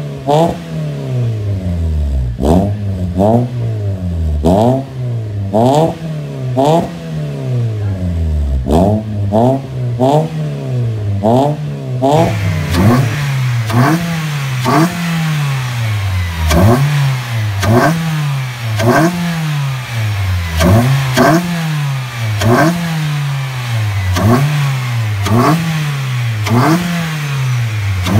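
A 2010 Mitsubishi Lancer EX's four-cylinder MIVEC engine, fitted with a full aftermarket exhaust, is free-revved in short blips about once a second, each rise in pitch falling back toward idle. About twelve seconds in, the sound shifts to the engine bay with its K&N air intake, and more intake hiss rides over the engine note.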